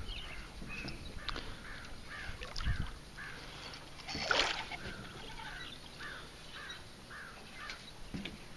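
A bird calling over and over in short, evenly spaced notes, about two a second. A brief rush of noise cuts across them about four seconds in.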